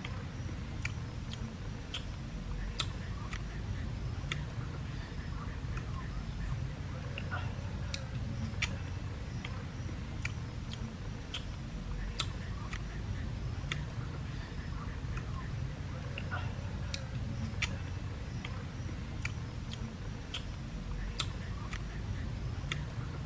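Cooked shrimp shells cracking and snapping as they are peeled by hand: sharp, irregular clicks, about one or two a second, over a steady low rumble.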